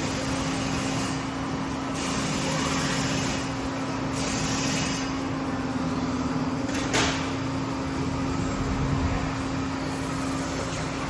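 Steady machine hum holding one low tone, with a single sharp click about seven seconds in.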